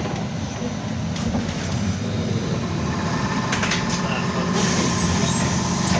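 Interior of a BKM-321 trolleybus standing at a stop: a steady low hum from the vehicle's onboard equipment, with a short rattle about three and a half seconds in and a hiss rising near the end.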